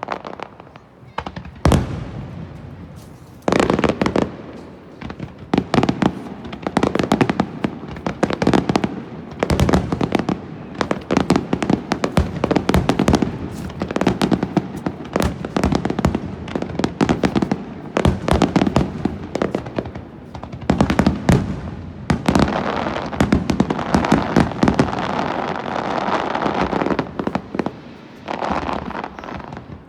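Fireworks display: a rapid, near-continuous barrage of aerial shell bursts, with a stretch of dense crackling about two-thirds of the way through.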